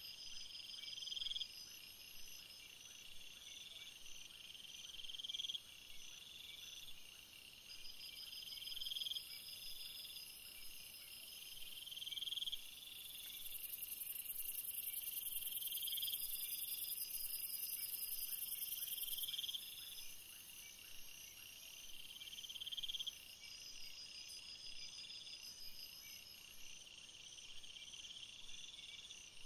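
Insects calling: a high chirping call swells and breaks off every two to four seconds, over a steady high hiss that grows louder for several seconds midway.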